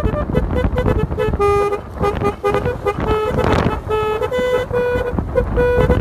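Basuri telolet multi-tone horn on a motorcycle playing a melody of short notes that step up and down in pitch, over a low rumble. A brief hiss comes about halfway through.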